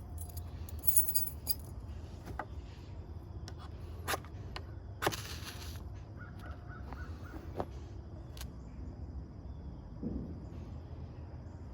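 Scattered clicks and knocks from a knife being handled against a piece of pine, with one short scraping rasp about five seconds in as the knife's spine is drawn across the wood.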